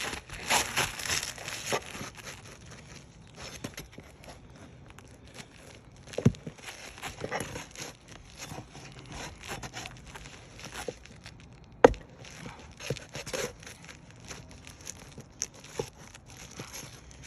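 Asphalt roof shingle being pried and torn up by hand, with rustling, scraping and tearing, the loudest in the first two seconds. Two sharp knocks come about six and twelve seconds in.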